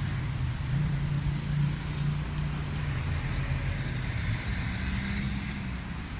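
A motor vehicle's engine running with a steady low hum over road noise.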